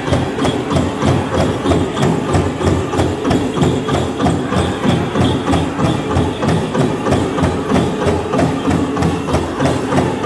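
Powwow drum group playing a chicken dance song: a big drum struck in a steady, even beat, with the singers' voices carried over it.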